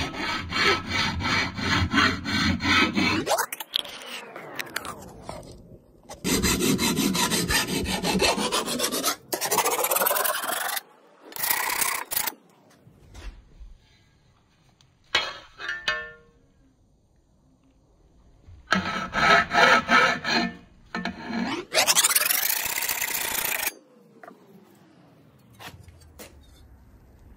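Hand file rasping along the cutting edge of a steel Craftsman lawnmower blade to sharpen it by hand. The strokes come in several runs of quick, repeated scrapes, with pauses between them and a longer lull around the middle.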